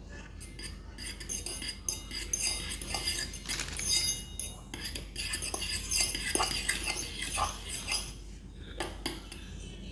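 A utensil clinking against a bowl in quick, irregular strokes while stirring a seasoned mixture. Each strike leaves a brief high ring, and there is a short lull near the end.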